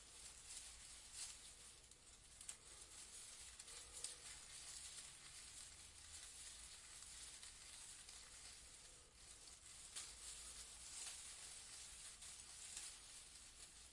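Leaves rustling faintly in a breeze: a soft, crackly hiss that swells and fades in small flurries.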